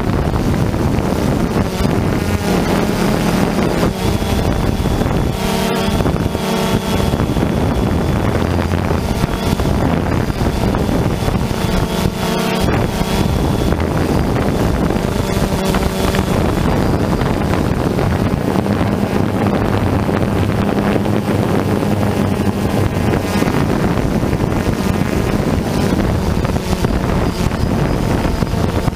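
Camera drone's electric motors and propellers running steadily in flight, a constant hum with a thin high whine, the pitch swelling and easing now and then, under wind buffeting the microphone.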